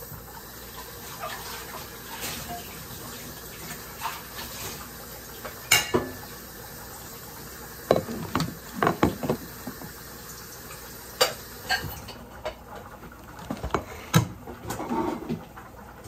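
Kitchen utensils clinking and knocking against a cooking pot, in scattered strokes with a quick cluster of knocks about eight to nine seconds in.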